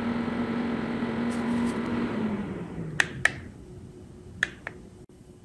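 Dreo 1500 W space heater's fan running steadily, then winding down about two seconds in, its hum falling in pitch as the blower coasts to a stop after the cooldown period. A few sharp clicks follow near the middle and later.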